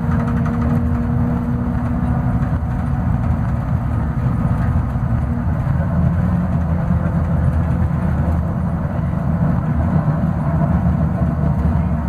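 Scania DC09 five-cylinder diesel engine of a Scania K280UB city bus pulling uphill, heard from inside the passenger cabin as a steady low drone. A higher whine over it stops about five seconds in.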